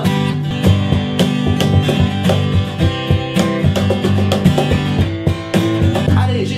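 Acoustic guitar strummed, chords played in a running rhythm as an instrumental break with no singing.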